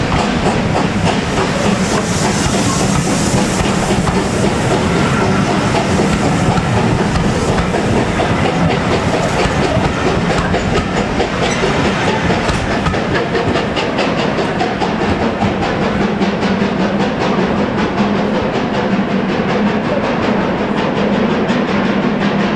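Passenger coaches of a steam-hauled train rolling past close by, the wheels clicking steadily over the rail joints, with steam hissing from beneath the coaches.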